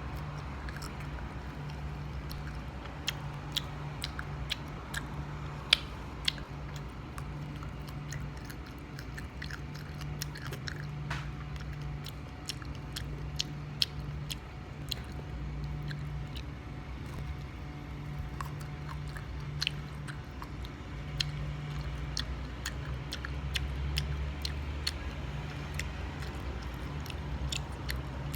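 A person biting and chewing sour mango close to the microphone, with many sharp crunches throughout and a steady low hum underneath.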